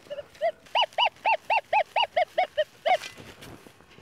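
German Shepherd dog whining in a rapid series of short, high yelps that rise and fall in pitch, about four a second, stopping about three seconds in.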